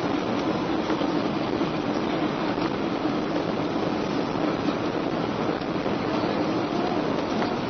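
Steady cabin noise of a jet airliner descending on approach: engine and airflow rushing, heard from inside the cabin, with a steady low hum running through it.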